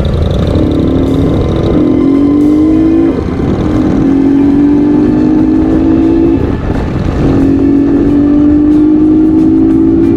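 Motorcycle engine accelerating through the gears, heard from the rider's seat: its pitch climbs steadily in each gear and drops back at three upshifts, about one and a half, three and six and a half seconds in, over steady wind and road noise.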